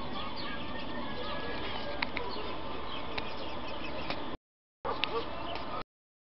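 Outdoor ambience of many small birds chirping over a steady background hiss. The sound cuts out completely twice, briefly, near the end.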